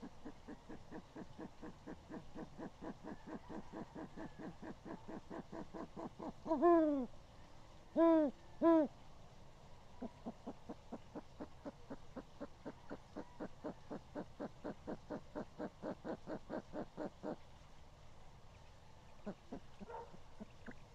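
Owl hooting: three loud hoots that fall in pitch, about seven to nine seconds in, with a couple of fainter calls near the end. Behind them runs a fast train of short repeated notes, about four or five a second, that stops about seventeen seconds in.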